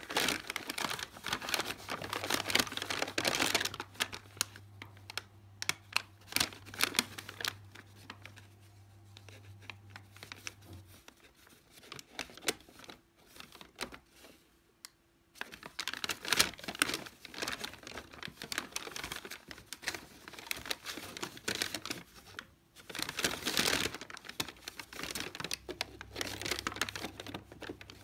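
Brown kraft-paper shopping bag crinkling and rustling in irregular bursts as a Sphynx cat shifts about inside it, busiest at the start and again from about a third of the way in to near the end, with a quieter stretch in between.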